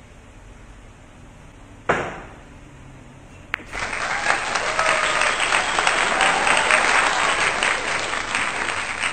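A single sharp knock on the pool table about two seconds in, then a click and a burst of crowd applause that keeps up to the end.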